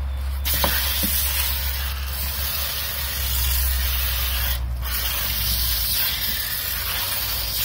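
Water spraying from a garden hose spray nozzle into a plastic water table: a steady hiss that starts about half a second in and breaks off briefly once near the middle.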